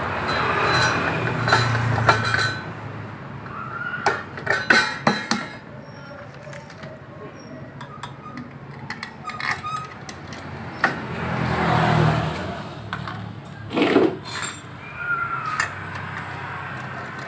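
Metal wrench clinking and clicking against the bolts of a Suzuki Nex II scooter's CVT cover as the cover is bolted on, in clusters about four seconds in and again near fourteen seconds. A low rumble comes and goes near the start and around twelve seconds.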